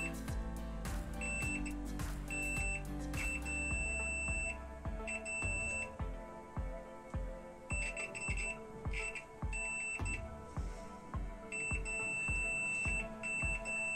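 Background music with a steady beat, and over it a digital multimeter's continuity beeper sounding in short and longer beeps, on and off, as the probes touch connected points.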